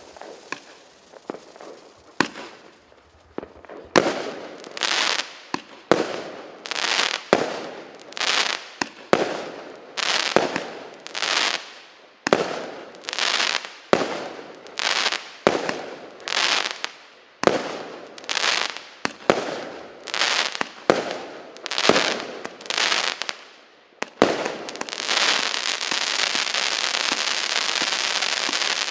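A 169-shot, 0.8-inch assorted fireworks cake firing. After a few seconds of faint scattered crackles, the shots go off in a steady run of about one and a half a second, each a sharp bang with a short tail. Near the end a dense, continuous crackle takes over.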